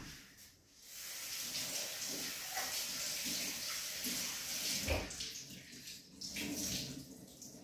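Water running from a kitchen tap into a stainless steel sink as a cleaning cloth is rinsed under it, with a dull knock about five seconds in; near the end the flow breaks up into a few uneven splashes.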